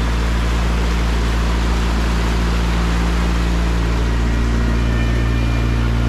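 Small motorboat's engine running steadily at speed while towing a raft, a constant low drone under an even rushing noise.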